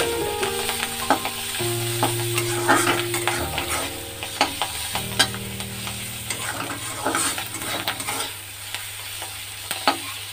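Ghatkol (kharkol) leaves with garlic and green chillies sizzling as they fry in oil in a metal kadai, with a metal spatula scraping and knocking against the pan as they are stirred.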